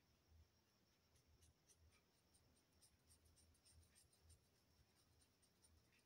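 Faint scratching of a crayon colouring on paper in quick, irregular strokes, with soft dull bumps of the hand against the sheet.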